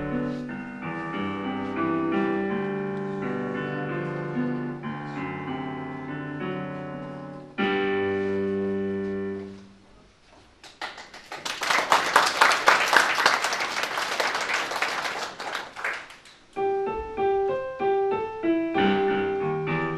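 Solo digital piano: a piece closes on a held chord that fades about eight to ten seconds in, an audience claps for about five seconds, and then the piano starts playing again.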